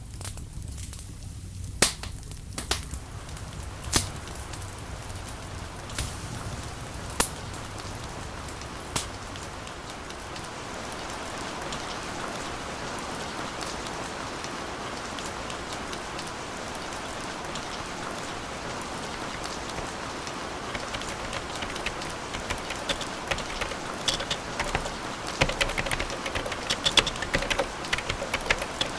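Crackling fire: a handful of sharp pops a second or two apart over a low rumble, fading out after about nine seconds into a steady hiss. Near the end, rapid keyboard typing clicks come in over the hiss.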